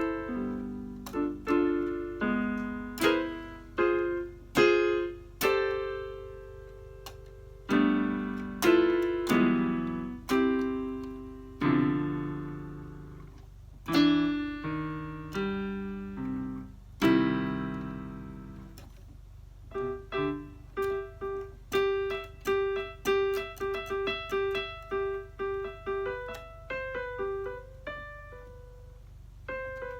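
Electronic keyboard played with a piano voice, unhurried improvised notes and chords that strike and fade, turning in the second half to quicker repeated single notes higher up. A steady low hum sits under the playing.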